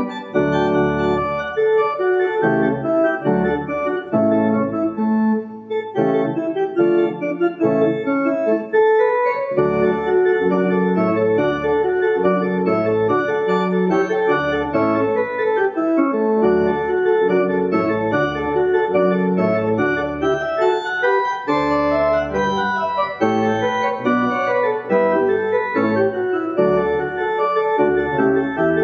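Organ playing a many-voiced piece of held notes over a bass line that drops in and out, with a short lull about five to six seconds in.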